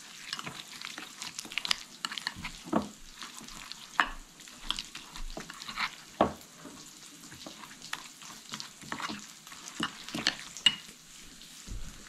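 Metal spoon stirring a thick cream cheese and walnut mixture in a glass bowl, with irregular clicks and scrapes of the spoon against the glass. A pan of bacon and shallots sizzles steadily underneath.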